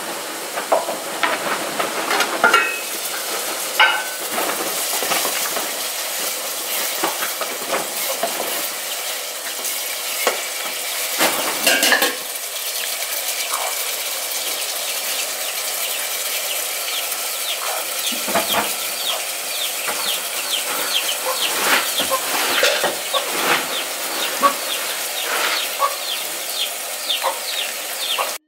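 Steady hiss of a steaming pot boiling on a cooking fire, with scattered clicks and knocks, and many short chirping calls in the second half.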